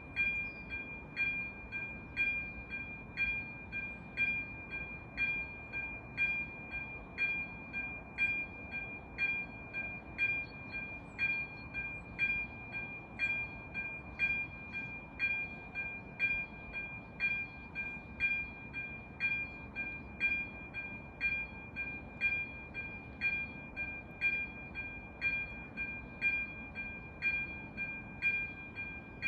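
Electronic level-crossing bell (AŽD ZV 02) ringing a steady, evenly spaced ding at about two strokes a second: the crossing's warning that a train is approaching.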